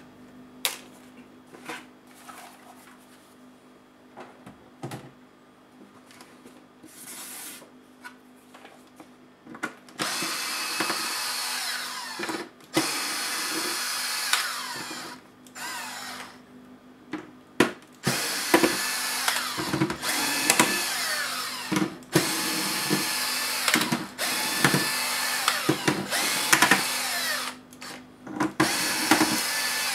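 Cordless electric screwdriver whirring in repeated runs of one to two seconds, backing screws out of a laptop's plastic case, with clicks of handling between runs. The first third is quieter, mostly small clicks and taps before the driver starts up.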